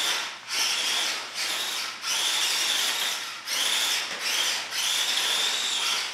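Grave Digger Trax RC toy truck's small electric drive motor and plastic gearbox whining. It runs in spurts of about half a second to a second and a half, with brief stops between, as the throttle is pressed and let go.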